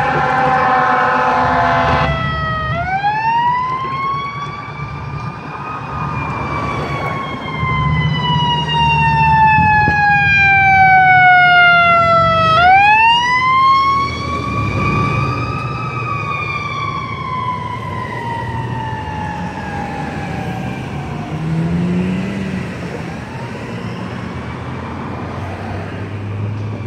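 Fire engine responding: a multi-tone air horn blast that cuts off about two seconds in, over a siren winding down, then the siren winding up and falling slowly twice as the pumper passes, fading out in the last few seconds. The truck's engine runs underneath.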